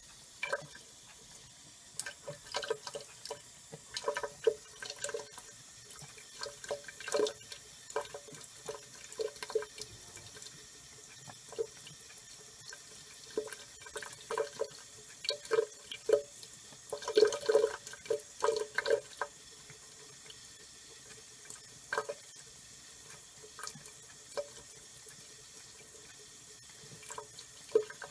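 Washroom sink tap running a thin steady stream while a cat drinks from it, with irregular wet lapping and splashing clicks that come in clusters, busiest about two-thirds of the way through.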